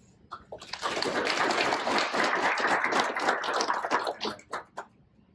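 Audience applauding, starting about a second in and thinning to a few last scattered claps before stopping near the end.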